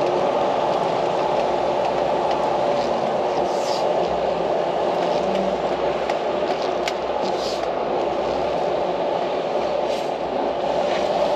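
Steady mechanical drone with a faint hum, running unchanged throughout, with a few faint clicks.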